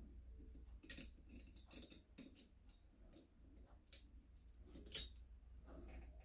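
Adjustable wrenches clicking and clinking against the metal fittings of a gasoline stove's vaporizer assembly as it is tightened. The clicks are scattered and light, with one sharper metallic click about five seconds in.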